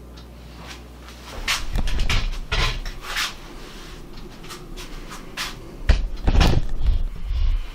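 A series of knocks, bumps and rattles from something being handled, in two bursts: one a little over a second in and a louder one about six seconds in, with deep thuds among them.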